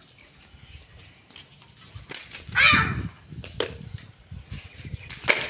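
A pecut, the plaited whip of Javanese jaranan play, being snapped: three sharp cracks a second or so apart, with a louder, noisier burst a little past halfway.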